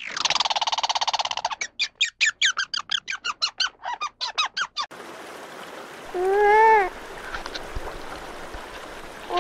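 Red squirrel calling: a buzzy trill, then a rapid series of sharp, falling chirps, about six a second. This is the squirrel's alarm or territorial chatter. After a cut, a nutria gives a drawn-out call that rises and falls in pitch, and starts it again near the end.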